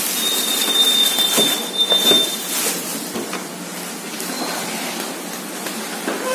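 Clear plastic wrapping crinkling and rustling as it is pulled off a new electric pressure cooker, busiest in the first two seconds with a thin high steady tone over it, then softer rustling.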